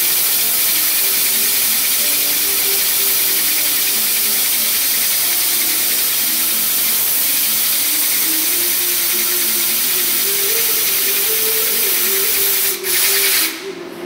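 Compressed-air blow gun hissing steadily at the cutting tool of a CNC lathe while the spindle turns a steel part. The hiss breaks briefly and then cuts off just before the end.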